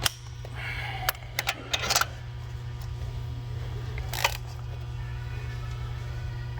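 A few sharp clicks and clinks of hand tools over a steady low hum: a cluster in the first two seconds and a single louder click a little past four seconds.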